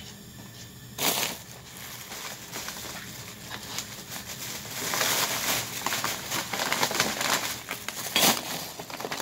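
Thin plastic food bags being handled close to the microphone: rustling and crinkling that starts about a second in, grows louder through the middle, and ends with a sharp crackle.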